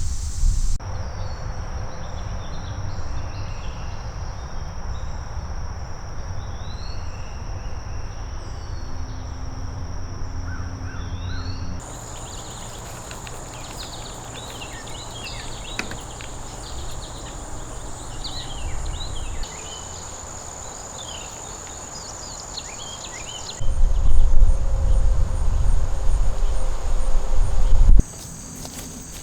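Outdoor natural ambience: insects trilling steadily at a high pitch, with scattered short bird chirps and a low wind rumble on the microphone. The mix changes abruptly several times, and the wind rumble gets much louder for a few seconds about 24 seconds in before dropping away suddenly.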